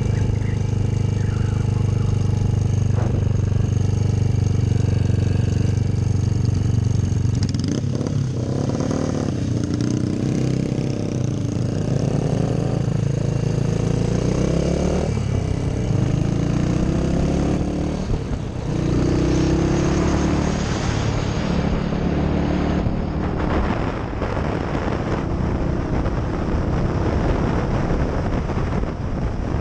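Motorcycle engine running under way, steady at first, then climbing in pitch and dropping back several times as it accelerates through the gears. In the second half the engine is less even and a rushing noise takes over.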